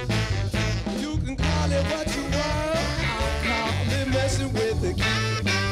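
A live band plays an up-tempo groove: a horn section of saxophones and trombone over electric guitar, bass guitar and drums.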